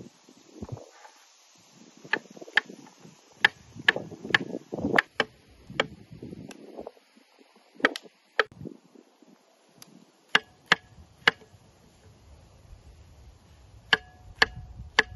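Chef's knife slicing button mushrooms on a wooden cutting board: sharp taps of the blade striking the board in short, irregular runs with pauses between, and soft rustling of the mushrooms being handled.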